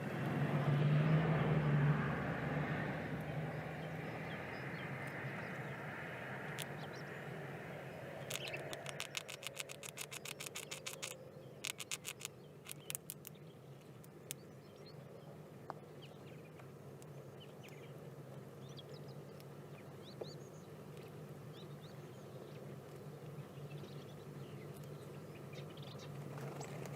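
A vehicle passes, rising and fading over the first few seconds. About eight seconds in comes a rapid rattle of sharp clicks in two runs, and faint bird chirps follow.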